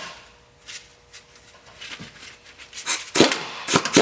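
Faint clicks, then a few sharp knocks and clatter of metal hardware and tools near the end, with a short ringing after them.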